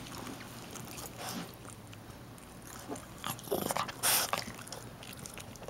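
Small Yorkie–Maltese mix dog sniffing and snuffling right at the microphone, in irregular short noisy bursts, the loudest a little after three and a half seconds and again around four seconds in.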